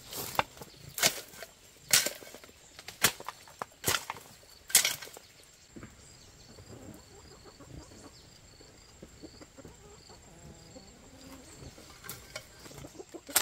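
A hoe chopping into wet clay soil, six sharp strokes about once a second, then stopping about five seconds in. Chickens cluck quietly in the background.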